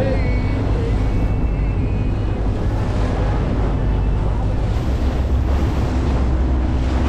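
Steady wind buffeting the microphone over the low, even drone of a charter fishing boat and the sea around it.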